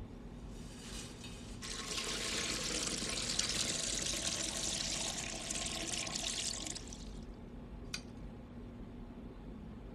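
Hot liquid poured from a steaming pot, a rushing splash that builds about two seconds in and dies away about seven seconds in. A single sharp click near the end, over a low steady hum.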